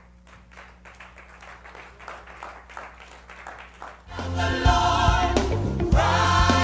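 Quiet for about four seconds, then gospel choir music starts loudly and carries on: many voices singing over a band with a steady beat.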